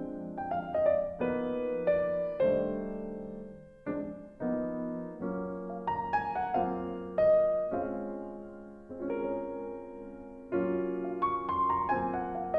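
Background music: a soft piano playing chords and melody notes, each note struck and fading away.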